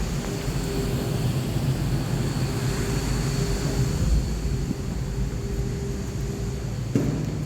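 Steady low outdoor rumble of high-rise city ambience, with a faint steady hum over it. A single sharp knock comes near the end.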